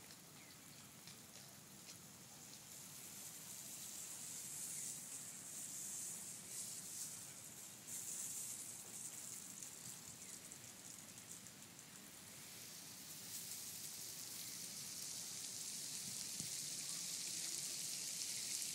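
Water spraying from a garden hose spray nozzle, a steady hiss of spray and droplets pattering on grass that swells and eases several times and is loudest near the end.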